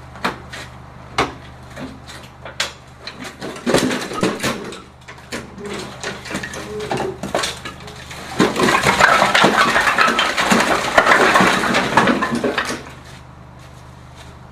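Hard objects knocking and clattering over a steady low machine hum: scattered knocks at first, then a dense run of clatter for about four seconds that stops abruptly near the end.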